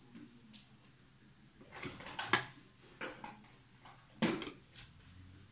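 Several separate light clinks and knocks of dishes and tableware, the loudest about two seconds in.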